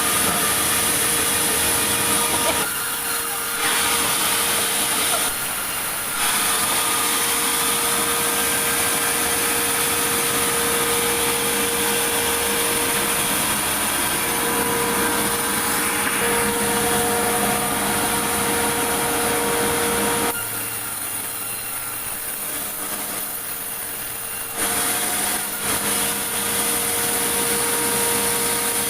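Sawmill saw running and cutting large meranti logs: a steady, loud sawing noise with a held tone. It drops briefly quieter twice early on and for a few seconds about two-thirds of the way through.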